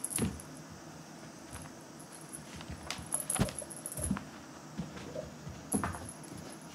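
A cat's paws landing and scuffling on a carpet as it hops and pounces, making soft irregular thuds and pattering, with a few louder thumps.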